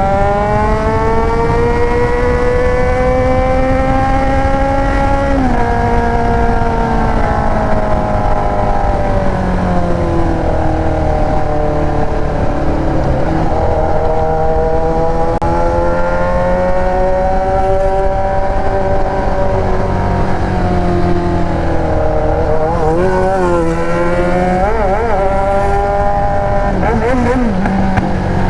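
Yamaha XJ6's inline-four engine running loud through an aftermarket Atalla exhaust while riding, its pitch climbing and falling with the throttle. The pitch drops suddenly about five seconds in. Near the end there are a few quick wavering blips.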